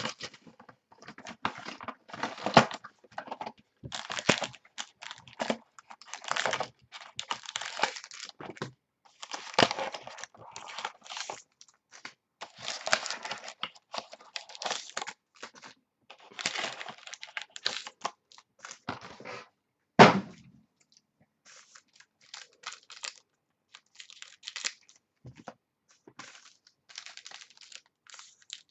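A trading card box being unwrapped and opened by hand: dense crinkling and tearing of plastic wrap and packaging, with one loud thump about two-thirds of the way through, then quieter, scattered rustling.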